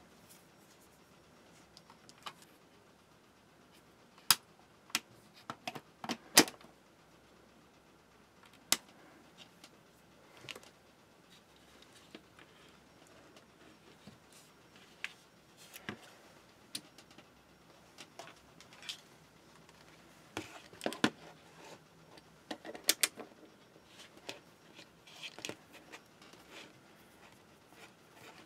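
Handling noise on a workbench: scattered sharp clicks and knocks as tools, a multimeter and its test leads are moved and set down on a cutting mat. The loudest clicks come in a cluster about four to six seconds in and again around twenty-one to twenty-three seconds.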